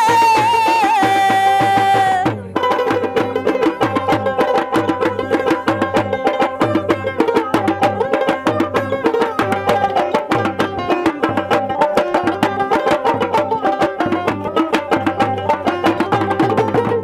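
Baul folk music: a woman's voice holds a long sung note for about two seconds, then an instrumental passage follows, with fast, steady dhol drum strokes under a plucked dotara melody.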